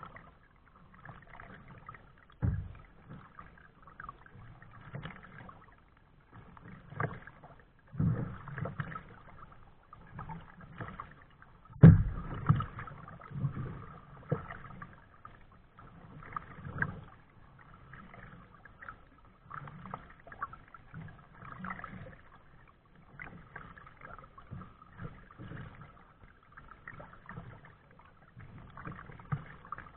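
Kayak paddling: irregular splashes of the paddle blades in the water, with a few sharp knocks, the loudest about twelve seconds in.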